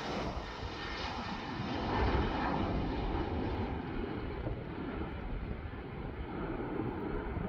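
Twin-engine Embraer E-Jet airliner's turbofans at takeoff thrust as it lifts off and climbs away: a steady jet roar whose hiss thins out in the second half as the aircraft draws away.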